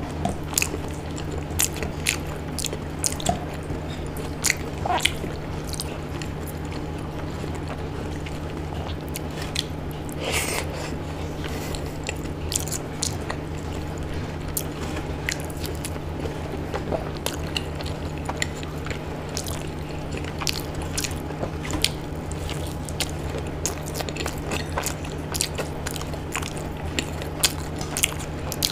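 Close-miked eating sounds of a person eating khichdi and fried pakoras by hand: chewing and biting with irregular wet clicks and smacks of the mouth, over a steady low hum.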